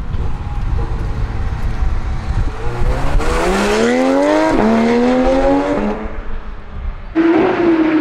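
Porsche 991 GT3's naturally aspirated flat-six accelerating hard: a low rumble, then revs climbing, a quick upshift about four and a half seconds in, and revs climbing again until the sound cuts off at about six seconds. Near the end another engine drones at a steady pitch.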